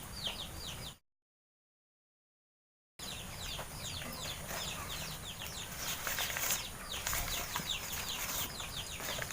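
Birds chirping in the background: many short falling chirps in quick succession, with faint rustling partway through. The audio drops out completely for about two seconds shortly after the start.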